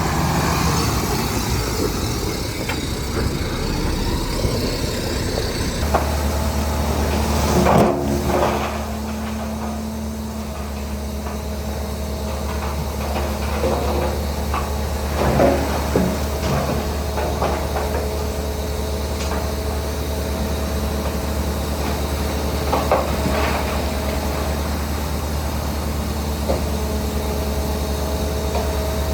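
Heavy diesel machinery engine running steadily, a low hum that settles about six seconds in, with scattered sharp knocks and clanks, the loudest about a quarter of the way and about halfway through.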